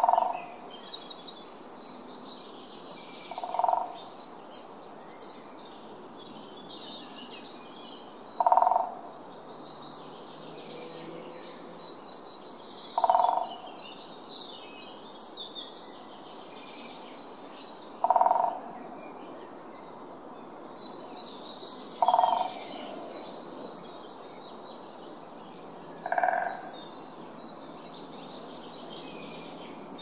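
Great spotted woodpecker drumming: short, rapid rolls of bill strikes on resonant wood, repeated about every four to five seconds as its territorial signal. Other small birds chirp and sing steadily behind it.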